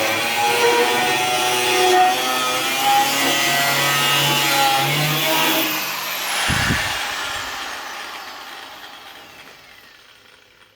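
Angle grinder running against metal, then switched off about six seconds in, its whine falling steadily as the disc spins down and fades out. A short low thump comes just after switch-off.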